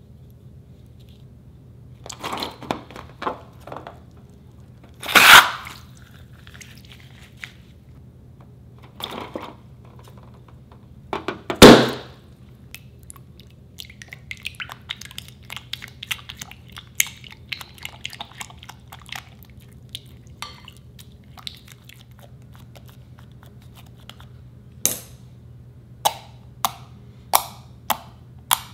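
White glue slime being worked in a glass bowl: a silicone spatula stirs it with many small wet clicks and squelches, with two louder bursts along the way. Near the end, fingers poke into the sticky slime with sharp pops about every half second.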